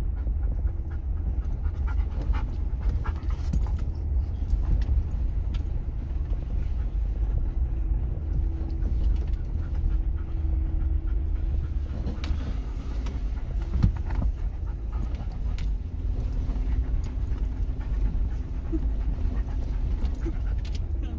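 Cabin sound of an off-road vehicle crawling over a rutted dirt and snow trail: a steady low engine and road rumble with scattered knocks and rattles from the bumps, and a sharper knock about fourteen seconds in.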